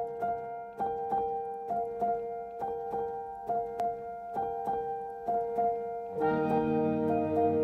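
Background piano music: a light melody of evenly spaced notes, about two a second, joined by a fuller, lower accompaniment a little after six seconds in.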